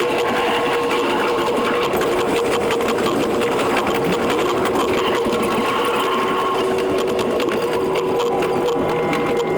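E721 series electric train's running sound sped up ten times: wheel and rail-joint clicks packed into a fast, even machine-like rattle over a steady motor hum.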